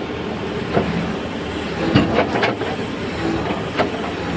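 Diesel engine of a heavy machine running steadily, with a handful of sharp knocks and clanks: one about a second in, a quick cluster around two seconds in, and one near the end.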